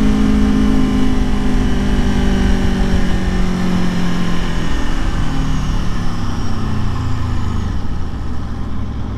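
Aprilia Tuono motorcycle engine running on the road, its note falling gradually through the second half as the bike slows down, over steady wind and road noise.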